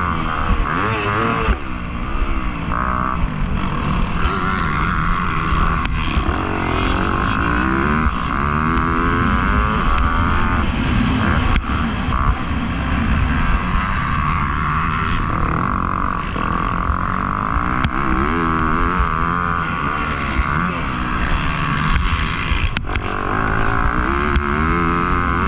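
Motocross bike engine running hard, its pitch rising and falling again and again every second or two as the throttle is opened and shut, over a steady low rumble.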